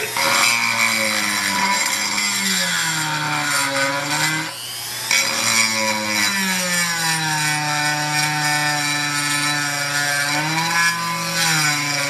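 Handheld rotary tool with a small ball burr grinding a hole into a terracotta clay tray: a high motor whine that sags in pitch as the bit bears down and recovers as it eases off. The whine briefly drops out a little before halfway, then picks back up.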